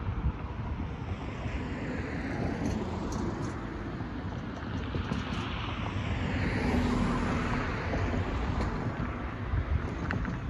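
Road traffic: cars driving over the grade crossing, their tyre and engine noise swelling as one passes close about six to seven seconds in and then fading. A couple of short knocks come near the end, and wind buffets the microphone throughout.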